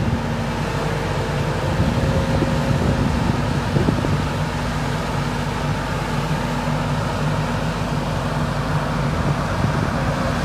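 A Volvo tracked excavator's diesel engine runs with a steady drone as it works its demolition grab. A light knock comes about four seconds in.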